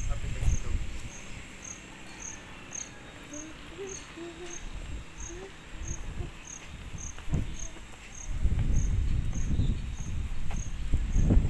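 An insect chirping outdoors, a short high pulse repeating evenly about twice a second. Bouts of low rumble on the microphone come near the start and grow loudest in the last three seconds.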